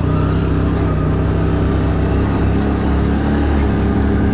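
ATV engine running at a steady speed, a low drone holding a steady pitch.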